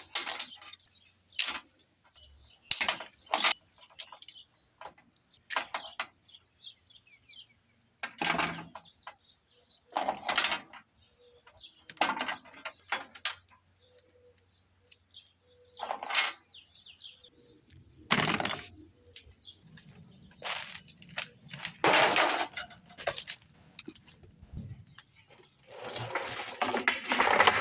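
Metal parts and hand tools clanking, clicking and scraping as a washing machine is taken apart for scrap: a string of separate sharp knocks and short rattles, with a longer rattling clatter near the end.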